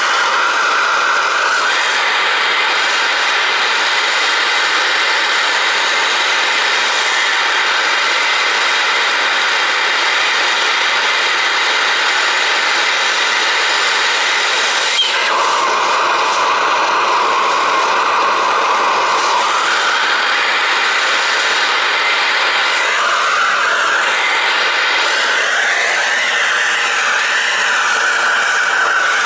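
A handheld gas torch flame hissing steadily as it heats a copper pipe joint for soldering. About halfway through there is a brief click and the tone of the hiss shifts, then it carries on steadily.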